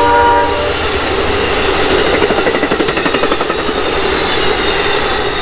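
Passenger train horn sounding a multi-note chord that stops about half a second in, then the train rolling past with a steady rumble and rapid clatter of wheels on the rails.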